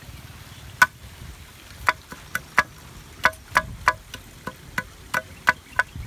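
Machete blade chopping a thin stick against a wooden log: about a dozen sharp, ringing knocks at an uneven pace, starting about a second in.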